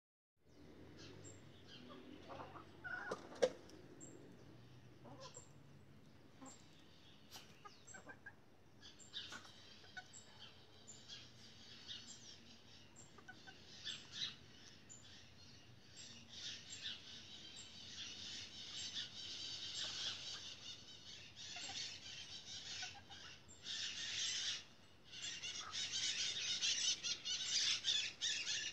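Free-range chickens pecking ground feed off a concrete floor, their beaks tapping in quick, irregular clicks, with a brief bout of clucking about three seconds in. A high hissing noise builds through the second half.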